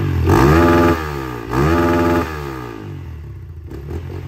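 Honda CRF150L single-cylinder four-stroke engine in a Kawasaki KLX trail bike, revved with two quick throttle blips whose pitch rises and falls, then dropping back to a lower, quieter idle.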